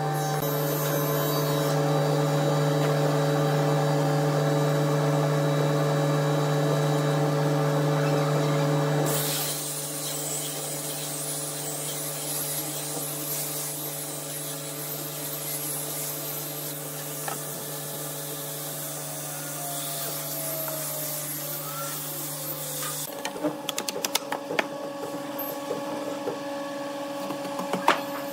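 Handheld angle grinder with a sanding disc running with a steady whine, then pressed onto a wooden cabinet door panel about a third of the way in, adding a hissing sanding sound. It shuts off after about 23 seconds, followed by sharp knocks and clatter of wood being handled.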